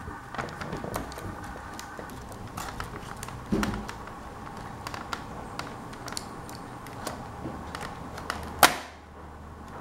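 Light plastic clicks and taps from a laptop keyboard being handled and worked loose, with a dull knock about three and a half seconds in and one loud sharp click near the end.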